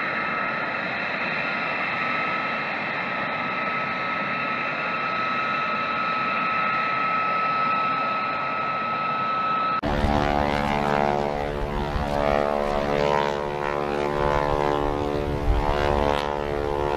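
Jet fighter engines running on the ground, the F-22 Raptor's twin Pratt & Whitney F119 turbofans: a steady whine with several held tones. About ten seconds in it cuts abruptly to a louder, buzzier engine sound made of many stacked tones with a rushing hiss.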